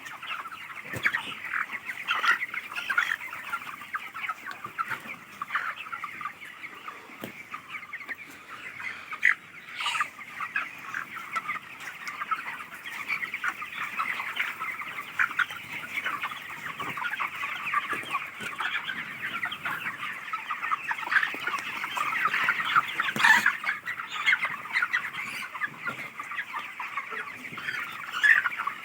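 A large flock of chickens in a poultry house, a dense continuous chatter of many overlapping chirps and clucks, with a couple of brief knocks.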